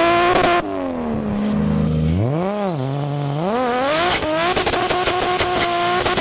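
Car engine revving as a sound effect: the pitch sags, swoops up and back down about two and a half seconds in, then a high whine climbs and holds at high revs over a run of sharp clicks.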